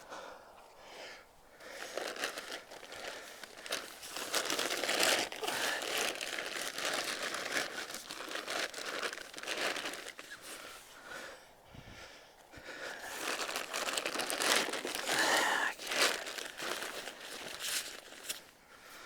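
A tarp ground sheet and tent fabric rustling and crinkling as they are handled and shifted into place. It comes in two long stretches with a brief lull in the middle.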